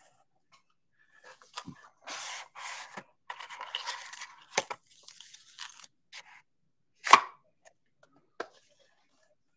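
Trading card box packaging being torn open and handled: several short ripping and rustling bursts in the first half, with a few sharp clicks and taps, the loudest a sharp knock about seven seconds in.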